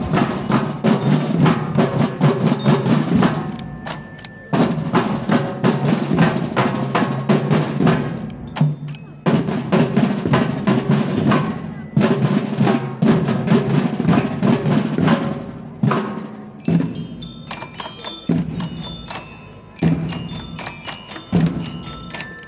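Marching band drum line playing loud, rapid snare drum cadences and rolls, broken by two short pauses. From about sixteen seconds in, bell lyres (marching glockenspiels) ring out short melodic notes over lighter drum beats.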